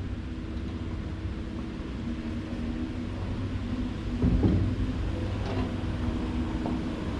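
Steady low mechanical hum with a rumble underneath, like a motor or engine running nearby, with a brief louder noise about four seconds in.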